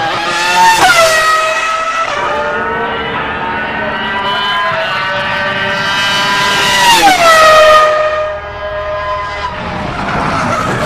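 Williams-BMW FW25's BMW V10 Formula 1 engine at racing revs, heard from trackside: a high, many-toned scream that climbs in pitch with brief breaks at gear changes, then drops steeply about seven seconds in and runs on at a lower pitch.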